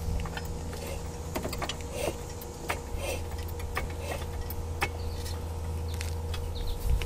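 Light, irregular clicks and clinks of metal parts being handled in a truck's front suspension while an air bag is fitted, over a steady low hum.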